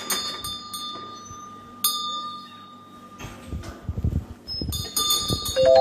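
Bell-like metallic chimes struck several times, each ringing on with high clear overtones: a quick run of strikes at the start, a single strike a little under two seconds in, and another quick run near the end. Low dull thuds come in the middle.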